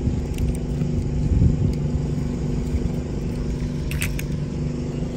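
A steady low hum, with a small die-cast toy car clicking against a plastic basket as it is dropped in, about four seconds in.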